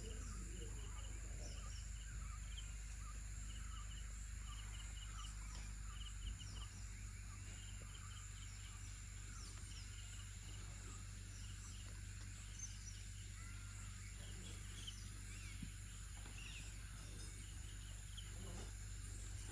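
Birds calling in short, quick runs of repeated chirps over a steady high insect buzz, with a steady low hum underneath.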